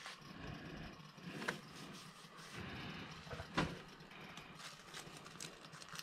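Faint handling noise of small parts at a workbench, with two light clicks: one about a second and a half in and a sharper one a little past halfway.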